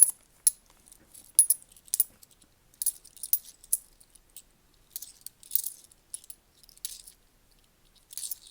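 Ten-pence coins clinking against each other as they are handled and sorted: irregular sharp chinks, with longer jingles of coins sliding together about five seconds in and again near the end.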